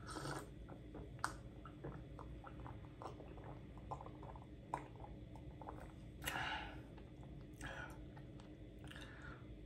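Close-miked swallowing and gulping while drinking from a glass mug, with small wet mouth clicks throughout and a few short breaths out, one at the start and several in the second half.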